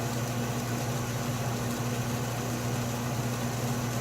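Atlas metal lathe running steadily under power, taking a light 10-thou cut, with a constant motor hum.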